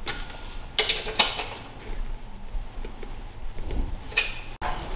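A few light metallic clinks and taps with a short ring, about a second in and again near four seconds, from the stainless-steel exhaust tailpipes and their clamps being adjusted into position.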